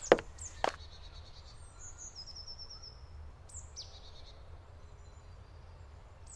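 Woodland ambience: small songbirds chirping and trilling with short high notes, over a steady low rumble. Two sharp knocks in the first second.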